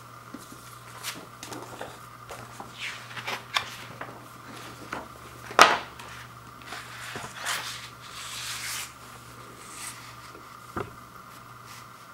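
Paper and plastic packaging being handled as a large fold-out paper poster is unfolded and laid on a wooden floor: rustling and crinkling with scattered light knocks and clicks, the sharpest knock about five and a half seconds in.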